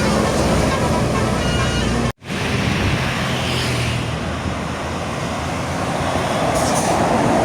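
Bus engine and traffic noise with short melodic notes from a bus's multi-tone telolet horn in the first two seconds. The sound cuts out sharply for an instant about two seconds in, then road noise of passing vehicles, growing louder toward the end.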